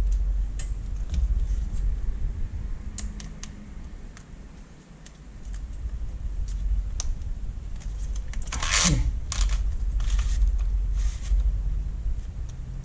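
Hands handling a metal-framed LCD panel and small parts on a workbench: scattered light clicks and taps over a low rumble, with a louder rustling scrape about nine seconds in.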